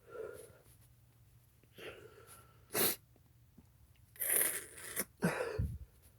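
A person sneezing: a short, sharp sneeze about three seconds in, then two longer sneezes close together near the end.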